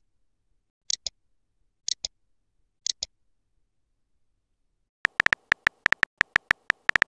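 Short ticks in pairs, about one pair a second, for the first three seconds. From about five seconds in comes a fast run of sharp phone-keyboard typing clicks, the texting app's key-tap sound effect.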